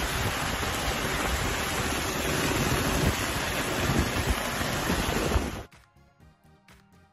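Wind buffeting and rushing past an open side window, with the road noise of a vehicle towing a caravan over a muddy dirt road. It cuts off suddenly near the end, leaving faint background music with a beat.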